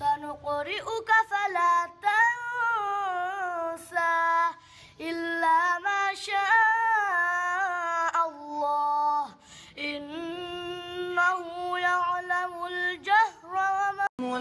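A young boy's high voice chanting a melodic religious recitation: long held notes that waver, in phrases separated by short breaths. It cuts off abruptly near the end.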